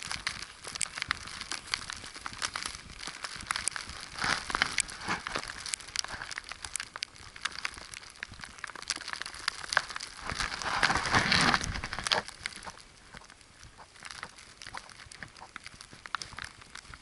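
Footsteps crunching in snow, an irregular run of short crackles, with a louder rushing swell about ten and a half seconds in.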